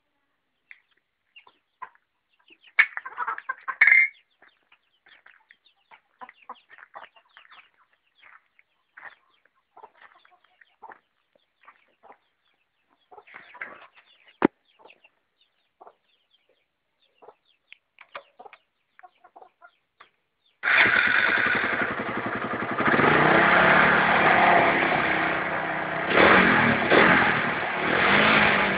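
Chickens clucking now and then, then a Suzuki Satria F150's single-cylinder four-stroke engine, fitted with an aftermarket BRT CDI, starts suddenly about two-thirds of the way in. It runs on with its revs rising and falling in a few blips.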